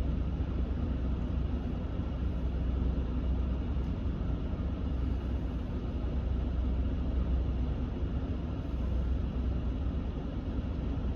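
Steady rush of air from a 2019 Ram 1500's HVAC blower through the dash vents, over the low rumble of the truck's warmed-up idling engine, heard inside the cab.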